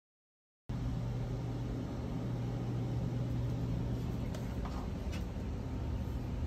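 Silent at first, then a kitchen appliance's fan and motor humming steadily, with a couple of faint clicks about four and five seconds in.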